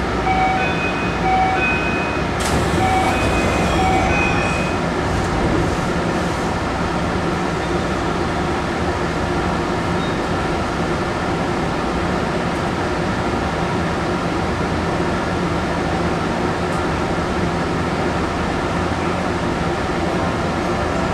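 Tsukuba Express 1000-series train doors opening at a station stop: a short door chime of several clear tones plays, with a brief hiss as the doors slide open about two and a half seconds in. After that the stopped train hums steadily.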